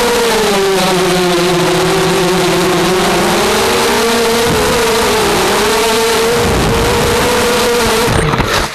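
QAV250 racing quadcopter's brushless motors and propellers whining, heard from the onboard camera. The pitch drops for a couple of seconds as the throttle eases, then wobbles and climbs back with the throttle changes, and the sound cuts off at the very end.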